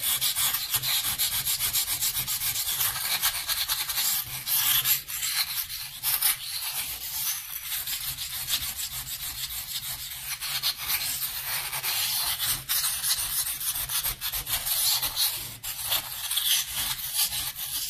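Dampened pumice stone scrubbed back and forth against a porcelain sink around the drain: a continuous gritty scraping of quick strokes, grinding off a hard-water stain ring.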